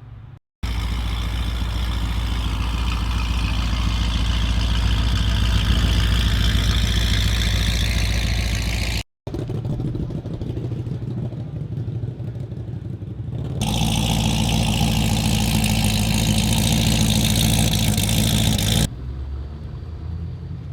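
Car engines running loud through performance exhausts in a string of short clips, the first one held with its pitch creeping slowly up, the others idling and running at lower and higher levels in turn.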